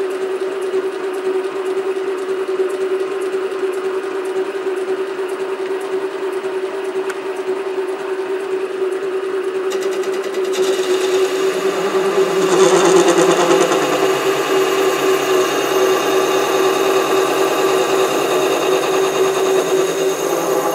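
SC2 mini lathe running forwards with a steady motor whine. About halfway through, a parting-off tool starts cutting into a 28 mm aluminium rod and adds a rough scraping noise, loudest a couple of seconds after it begins and carrying on as the tool is fed in.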